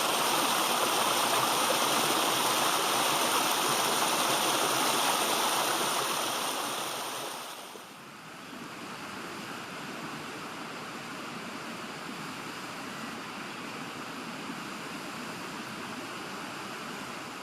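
Steady rushing of running water, louder for the first seven seconds or so, then dropping to a softer, even rush.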